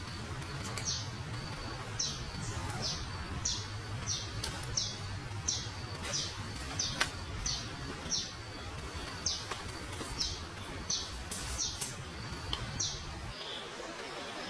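A bird calling over and over: short, high, down-flicking chirps, about one or two a second. A low rumble, likely wind or handling on the microphone, lies underneath and stops shortly before the end.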